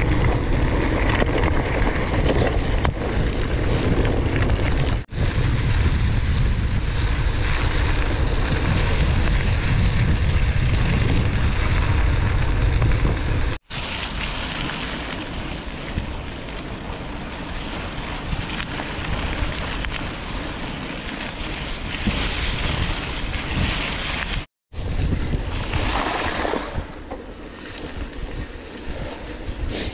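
Wind buffeting the microphone of a rider on a gravel bike, a heavy low rumble for the first half and lighter after. It breaks off abruptly three times.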